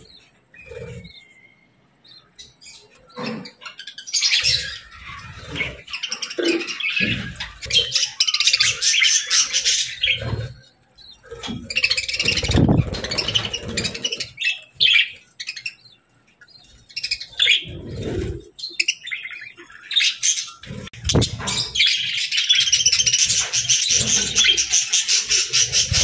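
A flock of budgerigars chattering and warbling in dense bursts of high chirps that come and go. The longest and loudest run is over the last few seconds. Short low thumps fall between the bursts.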